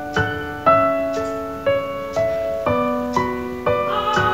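Background piano music, a gentle melody with chords struck about twice a second, each note ringing and fading.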